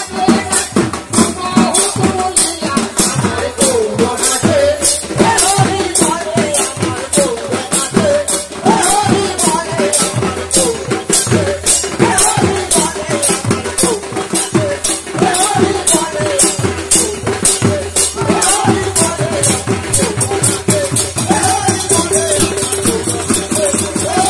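Live kirtan music: khol barrel drums and brass hand cymbals (kartal) playing a quick, steady beat, with a wavering sung melody over it.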